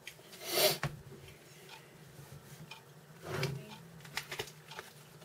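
A gum packet and its paper-and-foil wrappers being handled: light crinkling and small clicks, with two louder swishes, one about half a second in and one about three and a half seconds in, over a faint low hum.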